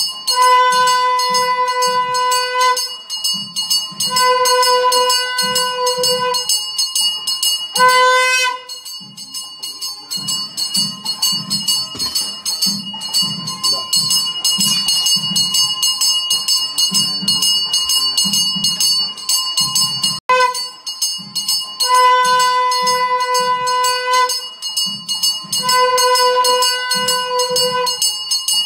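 Temple bells ringing continuously during an aarti lamp offering, over a regular beat of about two strokes a second. A held pitched tone sounds in blasts of about two seconds and drops out for a long stretch in the middle.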